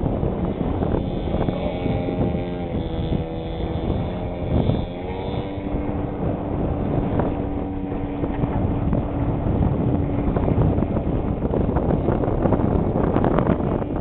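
Engine of a large-scale radio-controlled warbird model plane running in flight, its pitch shifting over the first few seconds and then holding steady, with wind noise on the microphone.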